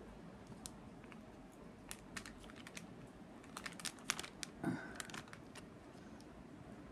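Faint, scattered small clicks and crackles of tape being peeled off the side of a resin-filled canister lid, with a few louder clicks between about three and a half and five seconds in.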